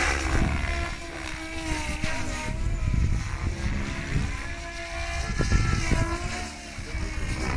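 SAB Goblin 700 radio-controlled helicopter flying, its rotor and drive whining with a pitch that keeps rising and falling as it manoeuvres.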